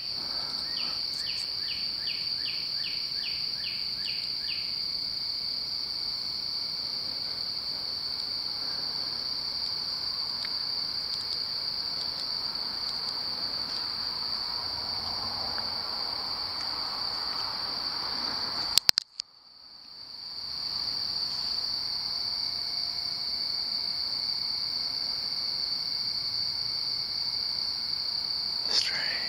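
Crickets singing in a steady, high-pitched chorus, with another caller chirping about twice a second for the first few seconds. Just before the two-thirds mark, two sharp clicks, then the sound cuts out for about a second and the chorus fades back in.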